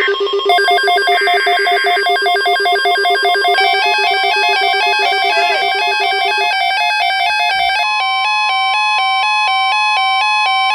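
Weather radio alert tones: a fast, evenly repeating electronic warble of several pitches that rings like a bell. The pattern changes about three and a half seconds in, and near the eight-second mark a steady single tone joins it, the alert sounding between broadcast messages.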